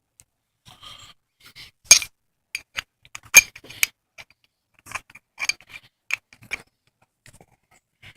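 Metal hand tools clinking and clicking irregularly: a socket ratchet with a long extension being handled and fitted. Two sharper clinks stand out, about two seconds in and about three and a half seconds in.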